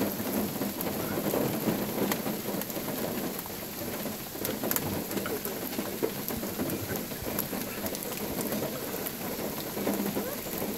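Steady rain falling, with scattered sharp ticks of drops.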